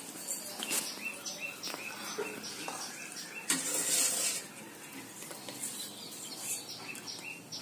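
Carrot juice and sugar syrup boiling thick in a pan, its bubbles popping in a quick run of short, high chirp-like pops, with a louder stir of the spoon about halfway through.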